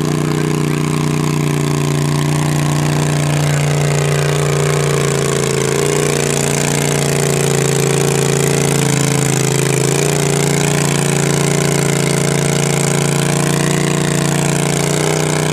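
Stock Cub Cadet garden tractor's engine running hard and steady under load as it drags a weight sled, its pitch holding nearly level with only slight wavering.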